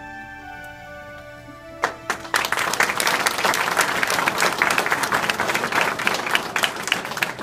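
Soft instrumental background music, joined about two seconds in by an audience clapping. The applause is the loudest sound and cuts off abruptly near the end.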